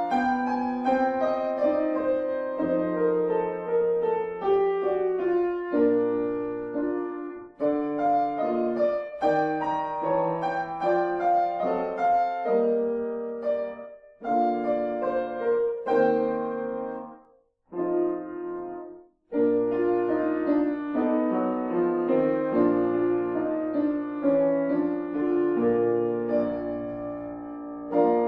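Grand piano played solo: a classical piece in flowing phrases, each note struck and then dying away, melody over bass notes. The playing stops briefly twice a little past the middle.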